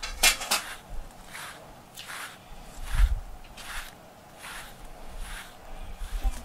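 A grooming brush stroking through a cat's fur, with short scratchy swishes coming about every three-quarters of a second. There is a low thump about three seconds in.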